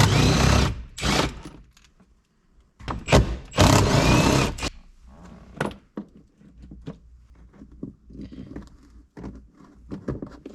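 Plastic interior trim on a Chevy Tahoe's A-pillar being worked loose and handled: two loud scraping bursts, then scattered clicks and light knocks.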